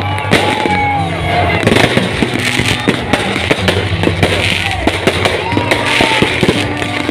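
Aerial fireworks going off in rapid, overlapping bangs and crackles, with music playing underneath.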